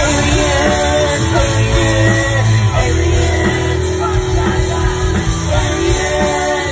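Punk rock band playing live: electric guitars, bass and drums, with a voice singing.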